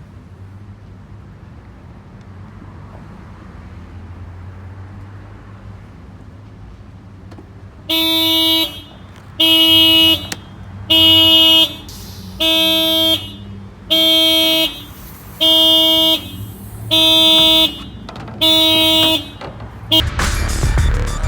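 Car alarm going off, sounding the car's horn in eight even blasts about a second and a half apart, typical of a factory alarm set off when a locked car's door is opened without the key. Before the honking there is a low steady rumble.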